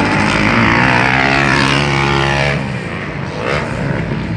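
Motocross bike engines running hard; one bike's engine note slides down in pitch and drops away about two and a half seconds in, and another bike's engine rises briefly near the end.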